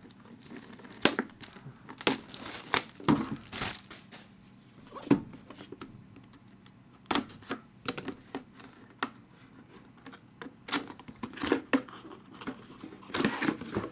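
A sealed trading-card box being opened: plastic wrap crinkled and torn, with irregular rustling and sharp clicks of cardboard and packaging.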